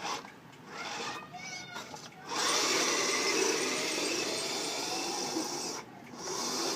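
Motor of a snow-clearing machine running with a steady whir for about three and a half seconds, then cutting off.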